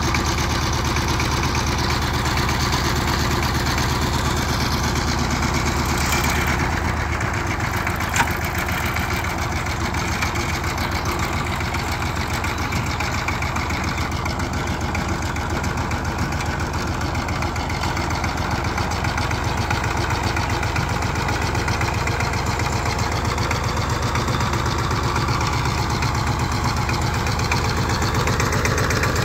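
The single-cylinder diesel engine of a two-wheel power tiller runs steadily with a rapid chugging beat. Its note shifts slightly about seven seconds in, and there is a single sharp knock a second later.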